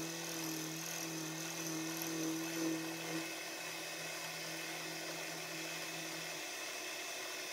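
Milling machine spindle running steadily, a motor hum over a high hiss, as a notch is plunge-cut in a small shaft. The hum drops away about six seconds in.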